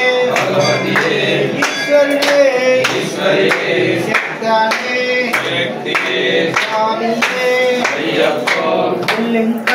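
A group singing a devotional bhajan together, kept in time by rhythmic hand clapping at about two claps a second.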